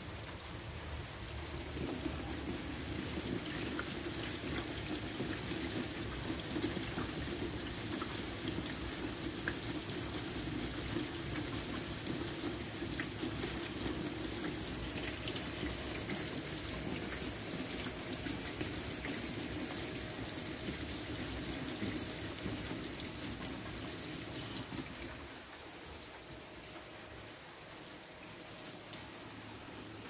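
Steady rain falling and splashing onto a wet surface and puddles. The rain grows fuller and louder about two seconds in and eases again near the end.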